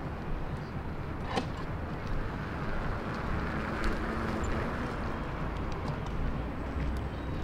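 Outdoor city ambience: a steady hum of distant traffic and general street noise, with a single sharp click about a second and a half in.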